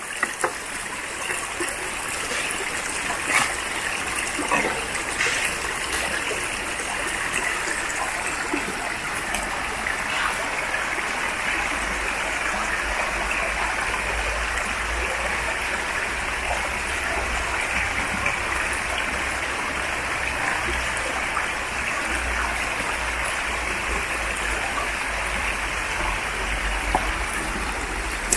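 Shallow stream running over stones: a steady rush of flowing water, with a few light knocks in the first several seconds.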